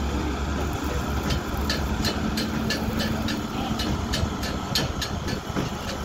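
Diesel engines of construction machinery running steadily, a tracked excavator and a small crawler bulldozer pushing sand, with repeated sharp clanks from about a second and a half in.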